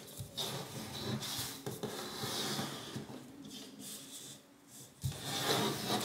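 A sheet of origami paper rustling and rubbing against the tabletop as hands fold it in half into a triangle, lining up the corners and pressing along the fold. There is a short lull just before a sharper rustle about five seconds in.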